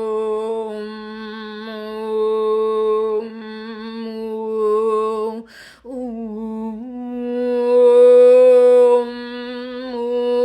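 A woman's voice toning long, steady wordless notes, with a quick breath in about six seconds in before a slightly higher note is held.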